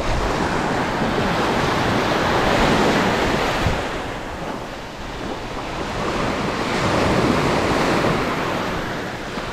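Small surf breaking and washing up a sand beach, swelling about two seconds in and again about seven seconds in.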